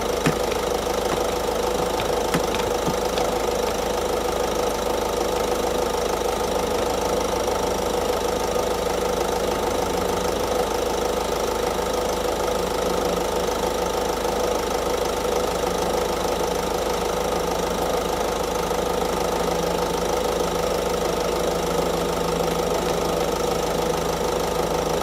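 Ford Focus 1.5 TDCi diesel engine idling steadily with the air conditioning running on maximum.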